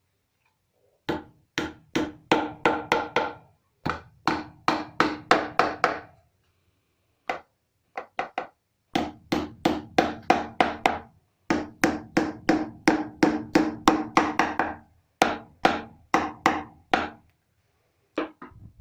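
Hammer blows on a poplar-wood piece, likely driving nails, in quick runs of several strokes with short pauses between runs; each blow rings briefly in the wood.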